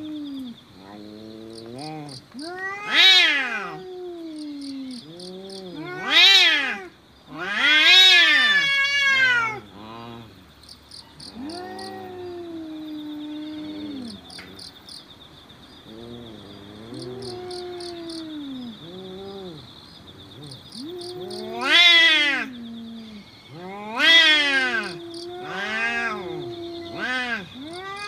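Cats caterwauling in a face-off: long, wavering yowls that rise and fall in pitch, swelling several times into loud wails. This is the threatening yowl of rival cats squaring up before a fight.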